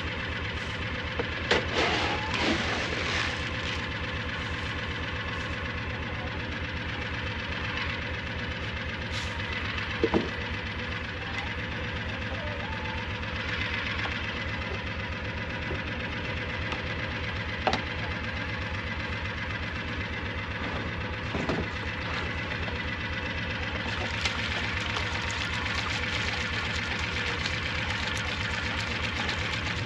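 An engine running steadily at an even, unchanging speed with a fast regular pulse, with a few brief sharp knocks scattered through.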